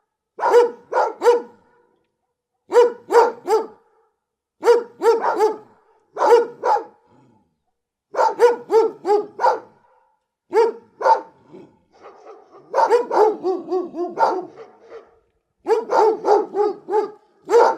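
A big dog barking close by in short bursts of two to five barks, with a second or so of silence between bursts. About two thirds of the way through comes a longer run of rapid barks.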